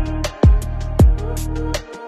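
Background music with a steady beat: deep bass-drum hits that drop in pitch about every half second, with hi-hat ticks over sustained tones.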